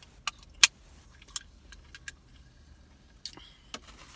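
A series of sharp clicks and taps, about six of them, from small hard objects being handled, the loudest under a second in.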